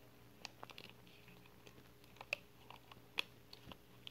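Faint handling noise of a plastic fashion doll being worked by hand: scattered small clicks and taps as a rubber piece is pulled up over its hips, with two sharper clicks a little after two and three seconds in.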